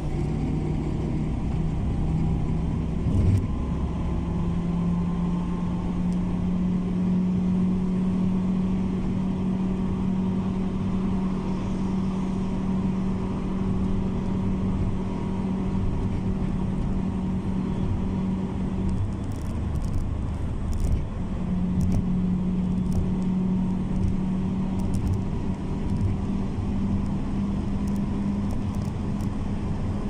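Car driving at highway speed: a steady drone of engine and tyres on the road, rising a little in pitch over the first few seconds, dropping briefly around twenty seconds in, then steady again.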